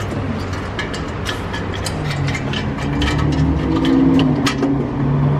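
Irregular light metal clicks and taps from brake parts and hand tools being handled, over a steady low hum that swells about two seconds in.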